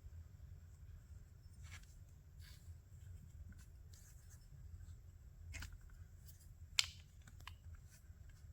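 Faint handling noises of small parts and tools: scattered light clicks and rubbing, with one sharper click about seven seconds in, over a low steady hum.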